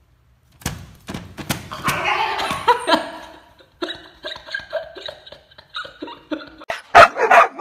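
A Siberian husky puppy whining and yipping, with a person laughing, and a few loud sharp yelps near the end.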